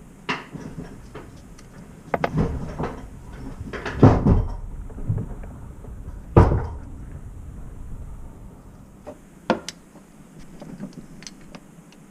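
A string of irregular knocks and clunks, the loudest about four and six and a half seconds in, with lighter clicks between them.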